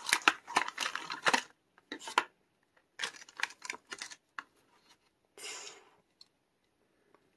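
Crackling and clicking of a Hot Wheels plastic blister pack and its card backing being handled as the die-cast car is worked free, in several quick bursts, with a short soft rustle about five and a half seconds in.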